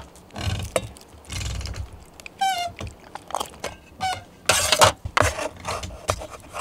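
Cooking and handling sounds: a string of knocks as a knife and an aluminium mess tin are set down on a wooden cutting board, then a louder scraping rush about halfway through as simmered fish in sauce is tipped from a metal pan onto rice. A short high call cuts in once, about two and a half seconds in.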